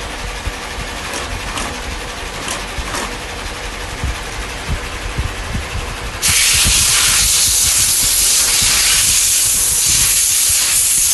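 Shoe-making machinery running with scattered clicks and knocks, then a loud steady hiss starts suddenly about six seconds in.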